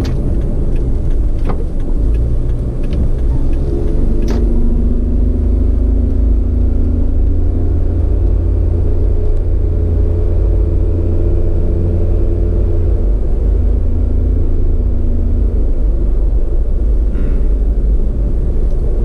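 A vehicle driving along at a steady speed: a heavy rumble of wind and road noise with a steady engine drone. The drone comes up about three seconds in and fades near the end. There is a sharp click about four seconds in.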